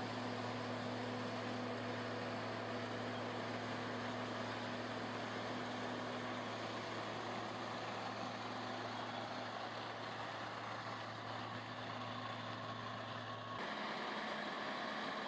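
Heavy road-construction machinery running steadily, a truck-like engine hum. The sound changes abruptly near the end.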